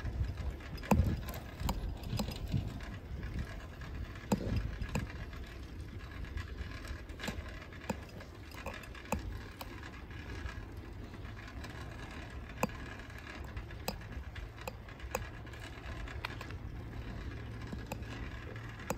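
Riding noise from a bicycle on a tarmac lane: a low wind rumble on the microphone with scattered light clicks and rattles. A faint, steady low hum joins about a third of the way in.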